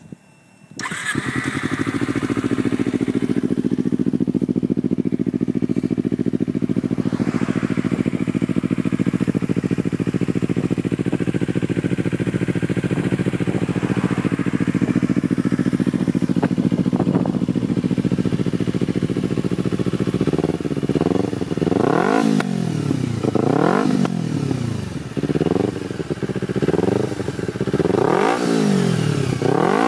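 Kawasaki Ninja 250R parallel-twin engine with a Yoshimura carbon fibre slip-on exhaust, starting about a second in and idling steadily. In the last third it is revved in a series of throttle blips, each rising and falling. The aftermarket slip-on gives it a sound that is a bit meaner than the stock muffler.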